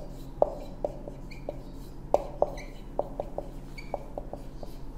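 Marker pen writing on a whiteboard: irregular taps of the tip against the board, with a few short squeaks as strokes are drawn.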